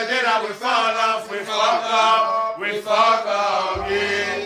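Male voices singing a chant-like melody with no beat behind it; a low bass note comes in near the end.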